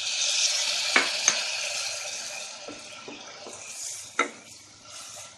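Chopped tomatoes sizzling in hot oil and fried onions in a pressure cooker while a wooden spatula stirs them. The sizzle is loudest at first and slowly dies down. The spatula knocks sharply against the pot three times.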